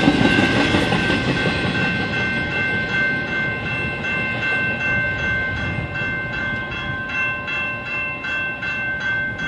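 General Signals Type 2 electronic crossing bell ringing steadily, over the rumble of the last intermodal well cars rolling past and fading away.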